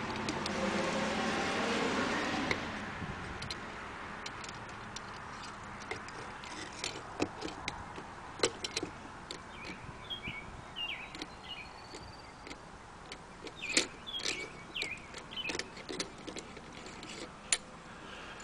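Light metal clicks and taps from handling and fitting the steel parts of a RUIXIN PRO knife sharpener's clamp and guide rod. A steady rushing noise fades out about two and a half seconds in.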